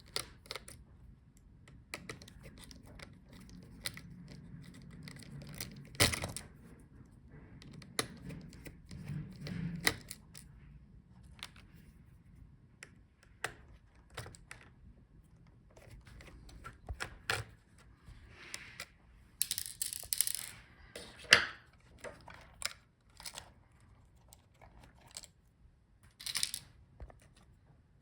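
Small clicks, taps and scrapes of a Torx screwdriver and small parts being worked on a laptop's internals as the video cable bracket screws are removed, with a brief run of rustling and tearing-like handling noise about two-thirds of the way in.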